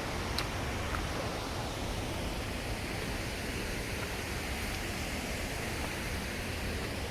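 Steady rushing noise of a waterfall's falling water, even and unbroken.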